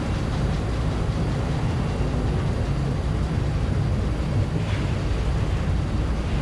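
Truck engine running as the truck drives, a steady low drone, with a brief hiss about three-quarters of the way in.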